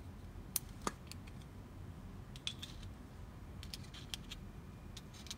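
Scattered faint clicks and light taps from a small plastic watch-band sizing tool being handled, with its needle compartment cover being opened.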